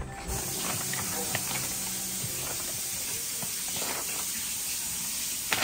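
A steady, even hiss that starts just after the beginning and cuts off near the end.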